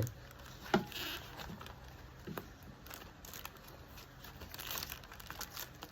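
Takeaway food packaging and utensils being handled: scattered clicks, taps and light rustles, with one sharper click about a second in and a busier stretch near the end.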